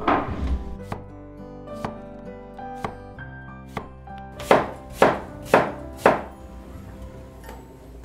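Large cleaver slicing an apple on a wooden cutting board. There are a few light cuts about once a second, then four sharper chops in quick succession just after halfway.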